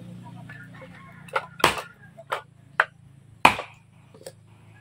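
Firewood being split into kindling with a short chopping blade: about six sharp wooden chops at an uneven pace, the loudest two near two seconds and three and a half seconds in.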